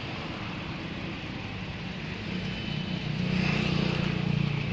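A motor vehicle's engine running amid street noise, growing louder about three seconds in.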